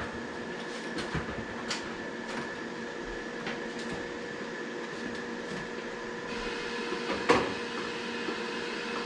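Newly installed gas furnace running with a steady motor hum. A few light clicks sound through it, a higher hiss joins about six seconds in, and there is one sharp knock about seven seconds in.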